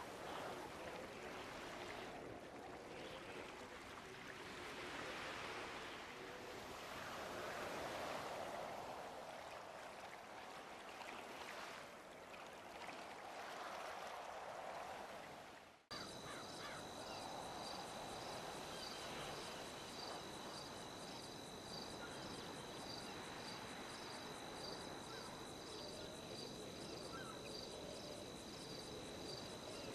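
Rushing water that swells and fades, then an abrupt cut about halfway through to a steady, high insect trill with a regular pulse, like crickets at night.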